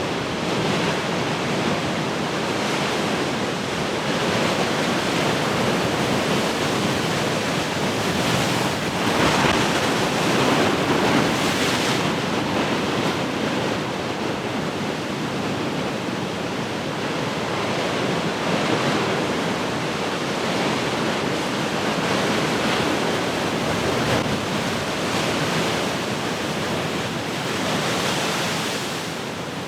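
Heavy ocean surf: big waves breaking and washing in a continuous roar that swells and eases, strongest about a third of the way in, with wind on the microphone.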